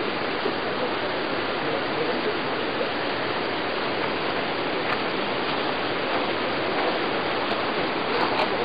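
Steady rush of water, an even noise that holds level throughout.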